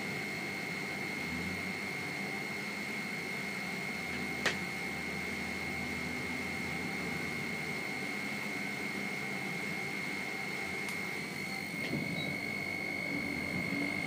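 Gantry crane cab's high-wind alarm buzzer sounding continuously as one steady high-pitched tone, the warning that the wind is above 21 m/s. A single sharp click about four and a half seconds in, over steady background noise.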